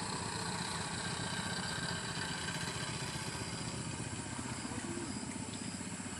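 A speedboat's outboard motor running steadily at an even speed, starting abruptly.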